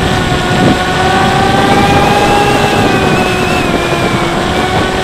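Bixler 3 RC plane's brushless electric motor and pusher propeller whining in flight, over a rush of wind noise. The pitch rises a little about halfway through, then settles back down.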